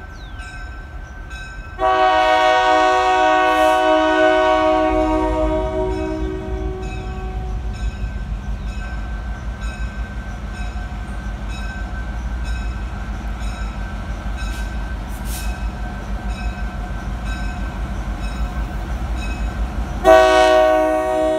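EMD GP10 diesel locomotive approaching a grade crossing: a long horn blast about two seconds in that fades over several seconds, then the low rumble of the locomotive and train building steadily, and the horn sounding again near the end.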